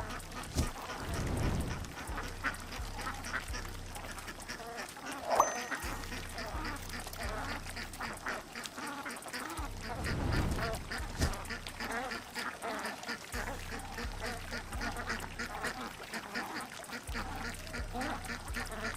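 Ducks quacking, many short calls one after another.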